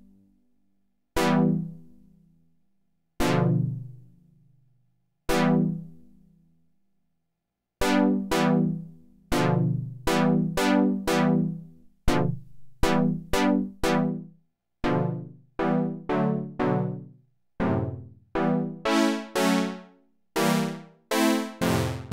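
Fred's Lab Zekit four-voice paraphonic synthesizer playing chords. First come three single chords about two seconds apart, each fading out, then from about eight seconds a step-sequencer pattern of chords roughly twice a second. Near the end the chords grow brighter as the filter cutoff is turned up.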